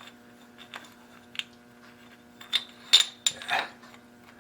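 Small metal objects clinking and tapping together about six times, with a light ringing, the clinks bunched around three seconds in, as tools are handled on a metal surface; a faint steady hum runs underneath.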